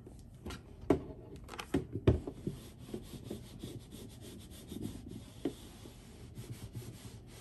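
Handheld Cricut heat press set down and slid across cotton fabric on a work mat: a few sharp knocks in the first two seconds, then soft rubbing and scraping as it is pushed over the cloth.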